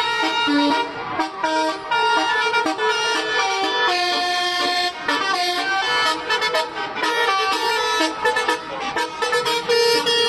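A bus's telolet horn playing a quick melody of changing horn notes.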